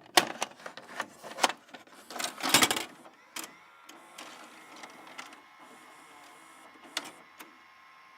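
A run of sharp mechanical clicks and rattles, loudest in the first three seconds, with scattered clicks up to about seven and a half seconds in; then a steady faint hum with a few steady tones.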